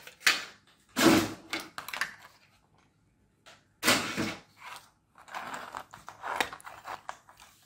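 Two loud knocks of the carbon monoxide alarm's plastic casing pieces being dropped into a bin, about a second in and about four seconds in. After them comes softer rustling and clicking as plastic parts and the circuit board are handled.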